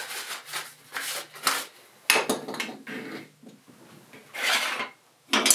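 A rag rubbing over the wooden jaws of a hand screw clamp in irregular strokes, with a few short knocks of the clamp being handled.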